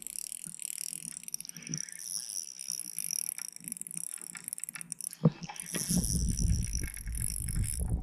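Spinning reel being cranked, its gears rattling and clicking, as a hooked walleye is reeled in, with one sharp click about five seconds in.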